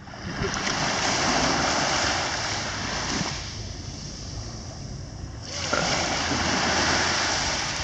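Small waves washing in on a beach, the surf swelling twice with a quieter lull in between.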